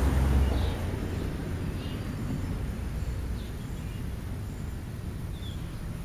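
A passing car fades away in the first second, leaving a steady low rumble of traffic and wind. Faint short bird chirps come four times.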